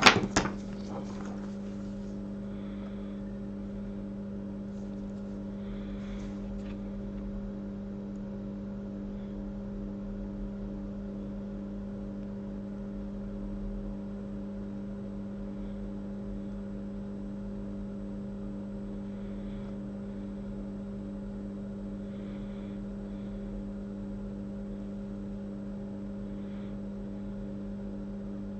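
Steady electrical hum from microsoldering bench equipment, with one line in it pulsing about twice a second. A sharp clatter of a tool on the bench comes right at the start, followed by a few faint ticks.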